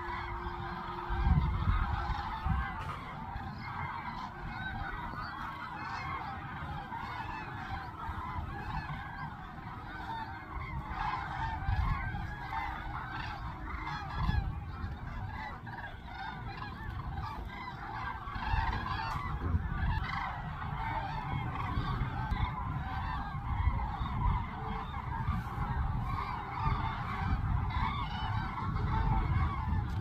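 A large resting flock of wild geese calling all together: a dense, unbroken chorus of overlapping honks, with a low rumble underneath.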